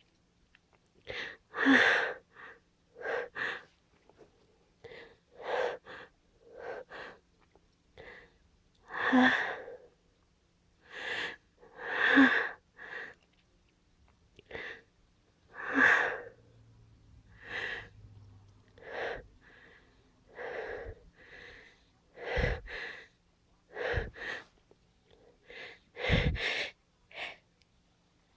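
A person caught in a stuck sneeze: a long run of short, sharp gasping breaths, about one every second or two, as the sneeze builds without coming.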